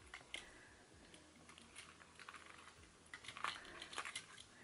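Faint handling noise: small clicks and rustles from a small key-holder case with car keys hanging from it being turned in the hands, with a few slightly louder ticks a little after three seconds and around four seconds.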